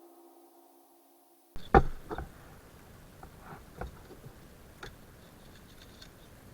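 The last held tones of background music fade out. Then, after an abrupt change, a few sharp knocks and clicks sound over a faint steady hiss. The loudest knock comes about two seconds in, and lighter ones follow about four and five seconds in.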